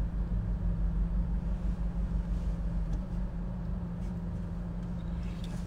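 Car idling, heard from inside the cabin as a steady low hum.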